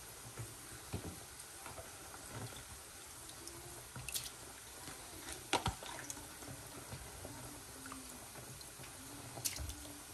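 Pot of rice at the boil, water bubbling faintly, with a few sharp clicks and knocks from kitchen utensils, the loudest about halfway through.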